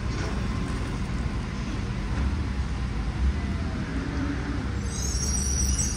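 Vehicle running, a steady low rumble with faint gliding whines, joined by a high-pitched squeal about five seconds in.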